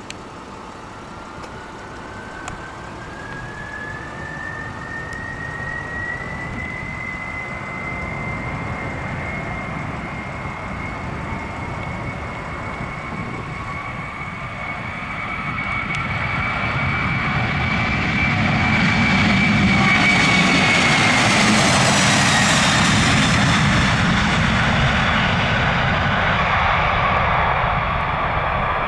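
Jet airliner's engines passing close by: a high whine climbs in pitch and holds while the roar builds, peaking about two-thirds of the way through as the whine drops in pitch, then easing off.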